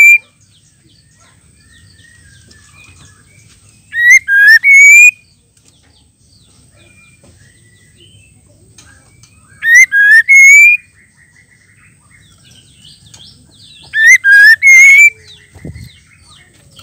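Female white-rumped shama calling: a loud phrase of three quick rising whistles, given three times about five seconds apart, with faint chirping between the phrases.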